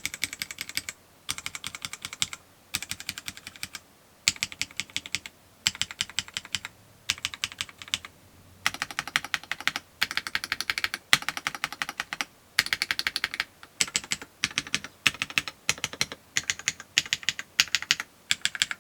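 Typing on a gasket-mount mechanical keyboard (AJAZZ AKS068) with linear-style switches: rapid keystrokes in short bursts separated by brief pauses. The bursts become longer and denser about eight and a half seconds in.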